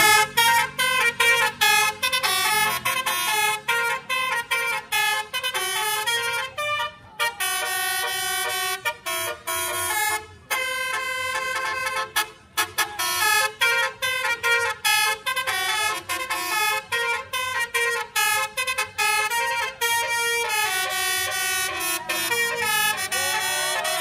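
Basuri-style multi-tone musical air horn (telolet horn) playing a fast melody of short stepped notes with brief gaps between them.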